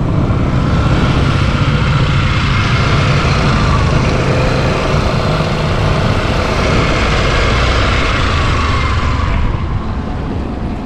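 Suzuki Burgman Street EX 125 scooter's single-cylinder 125 cc engine running on a test ride, with steady wind and road noise over it. The sound quietens about nine and a half seconds in.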